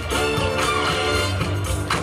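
Dance music with a steady beat, playing for a dance routine.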